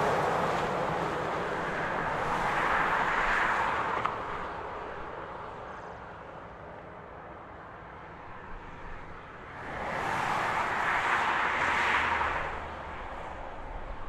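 Interstate traffic passing: the tyre and engine noise of cars and a semi truck swelling and fading. One pass peaks at the start and another about three seconds in. After a quieter lull in the middle, another vehicle swells past about ten to twelve seconds in.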